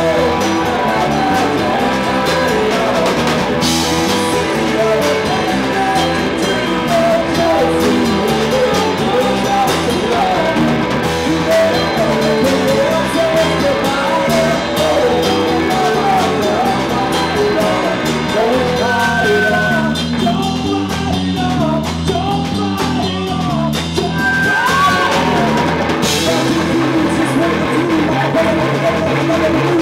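Live rock band playing: a male singer sings into a microphone over electric bass, electric guitar and a drum kit.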